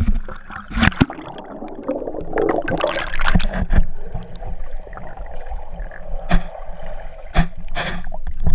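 Water splashing against an action camera as it goes under, then the muffled gurgling and bubbling of water heard through the camera's waterproof housing, with several sharp knocks.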